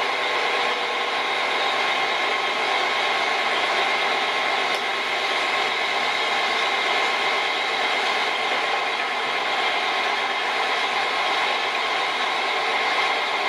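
Machinery running steadily, an engine-like drone with a constant hum of several tones and no change in pitch or level.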